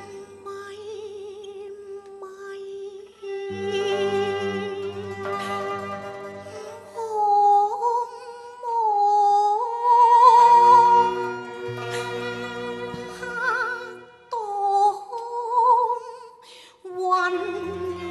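Cantonese opera song performed live: a woman's voice singing long notes with wide vibrato over traditional Chinese instrumental accompaniment.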